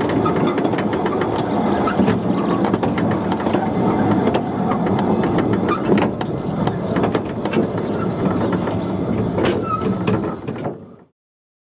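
Open narrow-gauge railway wagon rattling and clanking along the track behind its locomotive: a steady run of clicks and knocks over a low engine drone. The sound fades out quickly about eleven seconds in.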